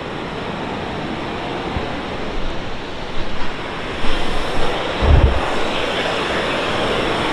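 Steady rush of the Maligne River's water churning through Maligne Canyon. A brief buffet of wind hits the microphone about five seconds in.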